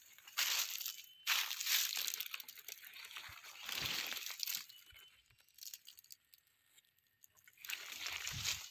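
Footsteps crunching through dry leaf litter in irregular bursts, going quieter for a couple of seconds after the middle and picking up again near the end.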